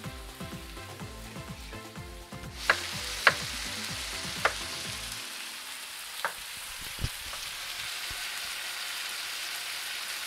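Music with a low beat for the first couple of seconds, then a pan of steak and vegetable stir fry sizzling steadily. A few sharp knocks of a ceramic knife on a wooden cutting board come from about three seconds in, the first two the loudest.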